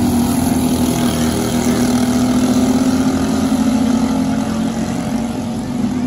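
Racing kart engines running at high revs in a steady drone as the karts race, the pitch dipping slightly near the end.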